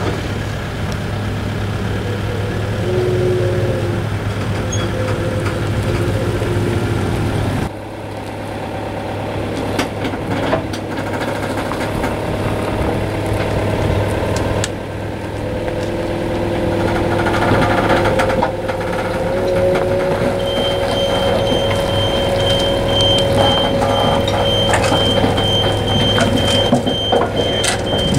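Forklift engine running, its pitch shifting up and down, while the boat trolley's hydraulics are lowered and the trolley is towed off. From about two-thirds of the way in, a high, steady beeping joins it.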